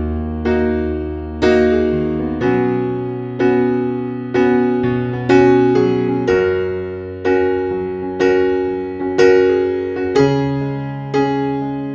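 Background music: a slow electric piano piece with a note or chord struck about once a second, each ringing and fading, over held bass notes that change every couple of seconds.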